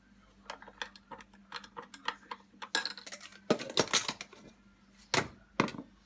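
Metal teaspoon clinking against a coffee cup while stirring, a quick run of light clinks with a burst of louder ones past the middle and two more near the end.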